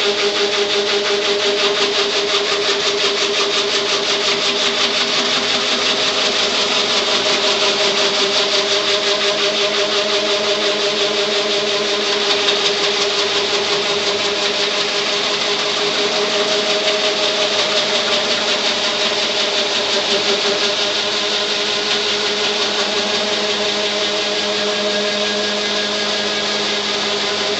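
Large wood-turning lathe running, its motor humming steadily under a continuous rough scraping of the cutting tool on the spinning wood.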